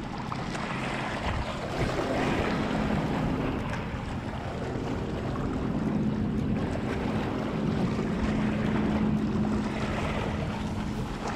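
Wind buffeting the microphone over small waves washing against a rocky shoreline, with a steady low hum underneath that grows stronger in the second half.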